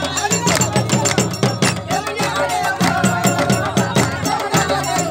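Traditional Malian folk music: fast, dense percussion strokes with a held melodic line over them.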